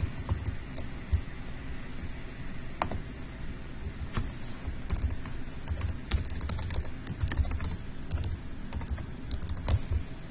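Computer keyboard typing: a few scattered keystrokes at first, then a quick run of keystrokes through the second half.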